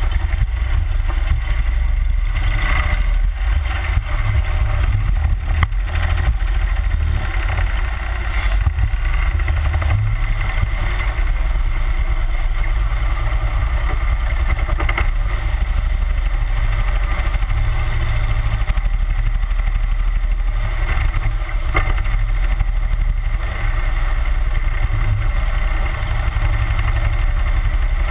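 A 31 hp Mudbuddy Hyperdrive surface-drive mud motor runs steadily, pushing a jon boat along, with a heavy low rumble. A few short knocks stand out above it.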